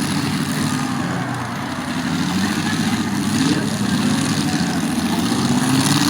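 Several demolition derby cars' engines running loudly together, with engines revving up in rising sweeps a few times.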